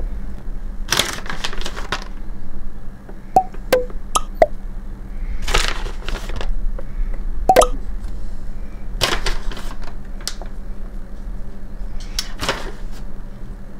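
Crinkly plastic bag of bacon crumbles rustling in four short bursts as the crumbles are picked out and sprinkled onto bagel batter in a silicone mold. A few light clicks and small clinks come in between.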